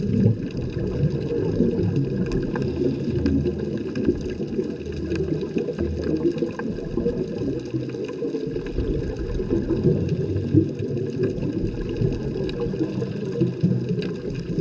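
Underwater ambience through a camera in a waterproof housing: a steady, muffled low water rush with faint clicks and crackles scattered throughout.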